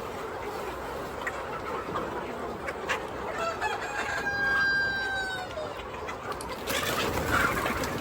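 A rooster crowing once, about halfway through: one long call of about two seconds that holds its pitch and drops slightly at the end. Chickens cluck around it.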